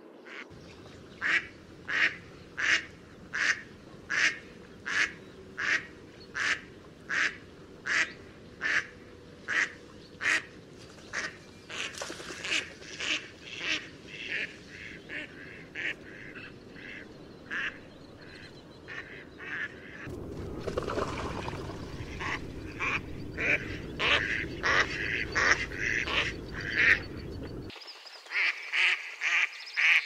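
Mallard ducks quacking: first a long series of evenly spaced loud quacks, about one and a half a second, then quicker, shorter calls. Later several ducks call over one another above a low rushing noise that cuts off suddenly near the end, followed by more quacking.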